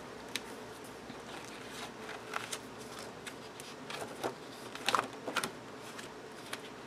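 Pages and dividers of a ring-bound paper planner being turned by hand: light paper rustles and small clicks, a few at a time, with a brief flurry of them about five seconds in.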